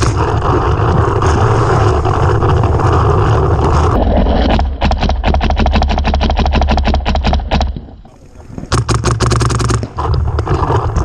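Paintball marker fire in rapid strings of about ten shots a second, one string of about three seconds starting about halfway through, then a shorter burst after a brief gap. Before the shots comes a heavy rumble and scraping of wind and movement on a mask-mounted camera microphone.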